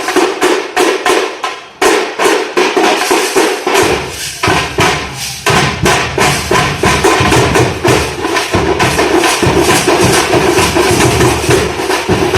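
Temple festival drum troupe playing a fast, dense rhythm of hard, rapid strokes. The deep drum part drops out for a couple of seconds early on, then comes back in full near four seconds in.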